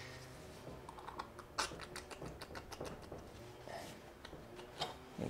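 Faint, irregular small clicks and rustles as gloved hands and a rag work a motocross rear shock's shaft and seal head out of the oil-filled shock body, with one sharper click about one and a half seconds in.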